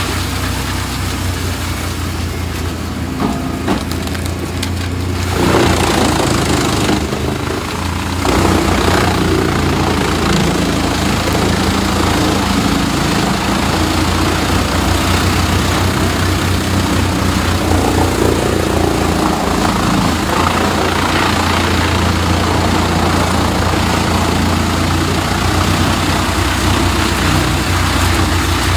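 Engine-driven wood chipper running under load, its engine a steady low drone beneath the crunching and splintering of wood being chipped. It gets louder about five seconds in and again about eight seconds in, then stays loud.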